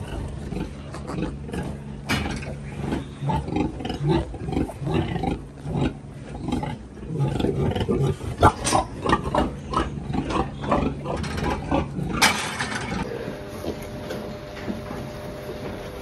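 Piglets grunting and squealing in a pen, short overlapping calls with one loud squeal about twelve seconds in, over a steady machine hum.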